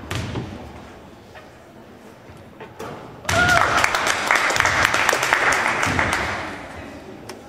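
Gym crowd applauding and cheering for about three seconds after a made free throw, starting about three seconds in with a short whoop, then dying away. A few faint thuds come before it.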